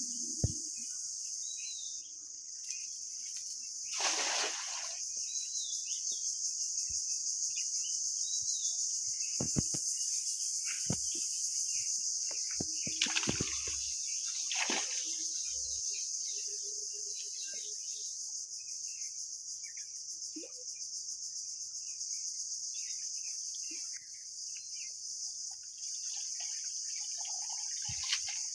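Steady high-pitched drone of insects in the vegetation, with a few bird chirps and several splashes in shallow canal water as a cast net is thrown and hauled.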